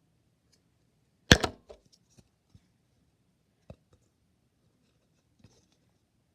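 Thick slime being pressed and squished by hand, giving one loud crackling pop about a second in, then a few scattered soft clicks and bubble pops.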